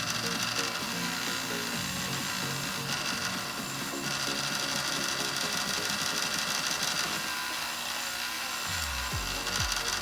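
Background music over the whir of a small power tool at work.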